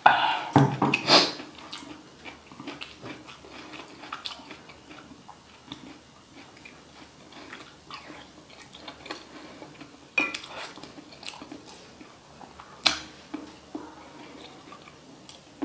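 Close-miked eating of spicy balut: chewing, lip smacks and slurps of sauce from a wooden spoon, with the spoon clicking against a cast-iron sizzling plate. The loudest bursts come in the first second or so and again around ten and thirteen seconds in.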